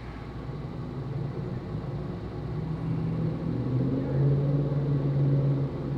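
Motor vehicle engine running: a low steady hum with a few slightly wavering tones, growing louder over the first few seconds and then holding.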